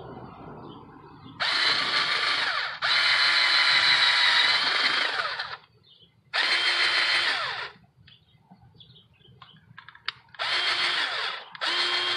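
Cordless drill running in five short bursts, each winding down with a falling whine as the trigger is let go, while it bores a starter hole into a PVC end cap. A few light clicks fall in the pause in the middle.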